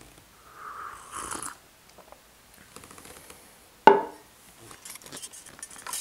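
Handling noises from restringing a Gibson ES-335 electric guitar: a brief scraping rustle about a second in, then a single sharp knock with a short ring about four seconds in, the loudest sound.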